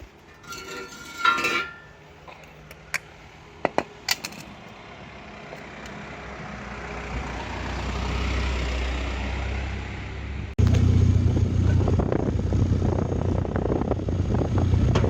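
A few clicks and knocks, then a swelling noise. About two-thirds of the way in, an abrupt change to the loud, low, steady exhaust note of a Suzuki Jimny Sierra fitted with a motorcycle silencer.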